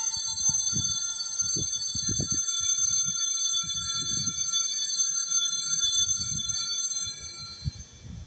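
Altar bells ringing at the elevation of the chalice during the consecration: a cluster of bright, steady bell tones that fade away near the end.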